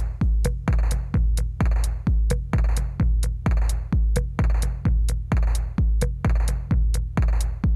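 Electronic music with a steady drum-machine beat, about two kicks a second over a deep bass line.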